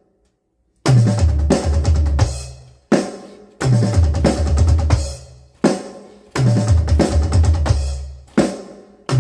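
Drum kit playing sixteenth-note triplet fills around the kit, with bass drum and snare. The fill starts about a second in and repeats in phrases of roughly two and a half seconds, each separated by a brief break.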